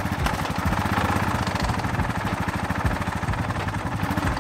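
Honda Foreman 450 ES ATV's single-cylinder four-stroke engine idling, a steady run of rapid, even firing pulses.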